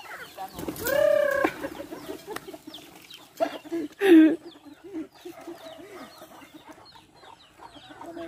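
A backyard flock of chickens clucking steadily, with a loud drawn-out call about a second in and a short loud squawk about four seconds in.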